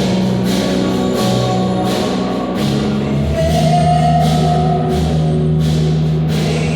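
A band playing music: held notes and chords over drums, with cymbal hits about once or twice a second.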